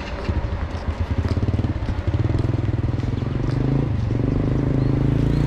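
A small engine running with a fast, even pulse. It gets louder and rises in pitch about two seconds in.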